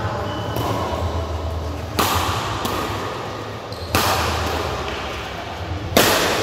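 Badminton rackets hitting a shuttlecock in a rally, three sharp echoing cracks about two seconds apart. A steady low hum runs underneath.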